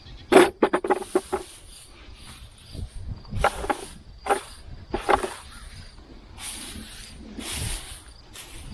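Dry hay mulch and potato plants rustling and crackling as they are pulled up by hand. A quick run of crackles comes near the start, followed by irregular short rustling bursts.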